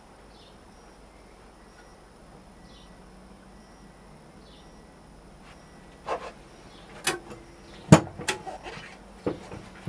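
Metal tools clattering as they are handled: a quick run of sharp clicks and knocks in the second half, loudest about eight seconds in, over a faint steady background.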